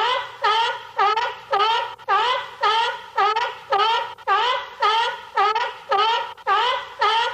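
Cartoon sound effect: a loud pitched note repeated evenly about twice a second, each note dipping and then rising in pitch.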